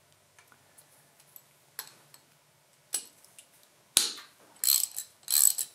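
Ratchet wrench clicking as 12 mm bolts are turned out of the water pump housing on a tractor engine: a few faint clicks at first, then several short, louder runs of ratcheting from about four seconds in.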